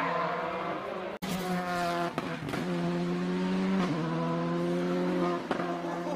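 Volkswagen Polo R5 rally car's turbocharged four-cylinder engine running at high revs, its note holding steady with brief dips at the gear changes. The sound breaks off abruptly about a second in and picks up again on another stretch of the car at full throttle.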